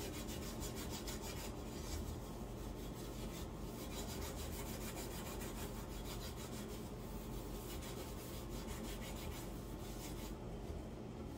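A scrub sponge rubbing back and forth over a greasy stovetop around a burner, in quick, even strokes. It is scrubbing off grease that has been caked on for a while and has been loosened with a degreaser spray.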